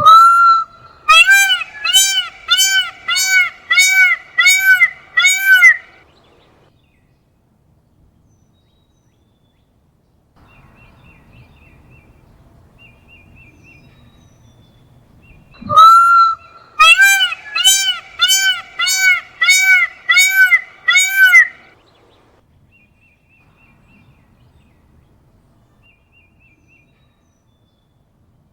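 Peacock calling: one long loud wail, then a quick run of about eight short, arched, honking calls, roughly two a second. The whole series comes twice, the second bout starting about sixteen seconds in, with faint chirps of smaller birds in the gaps.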